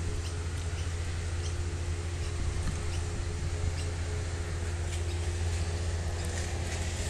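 A steady low hum, with faint short high ticks scattered irregularly over it.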